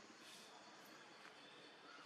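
Near silence: a faint steady background hiss with a couple of soft clicks.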